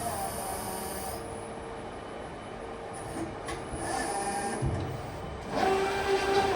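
Hybrid CNC press brake running, its servo-driven hydraulics whining in three stretches of about a second each: near the start, around four seconds in, and near the end. A short low thump falls just before five seconds.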